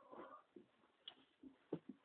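Faint scuffling in straw as a dog and cat tussle: a few short taps and rustles, with a brief soft sound right at the start.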